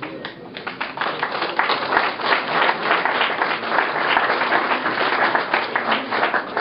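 Audience applauding: many hands clapping, swelling about a second in and tapering off near the end.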